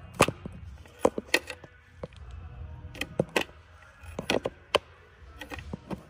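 About a dozen scattered sharp clicks and knocks of hands working among plastic wiring connectors and harness in an engine bay, feeling for a loose starter connector.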